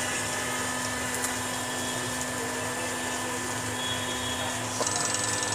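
Diesel fuel-injection pump test bench running: a steady machine whir with a constant hum. Near the end the hum stops and a fast, high-pitched ticking starts.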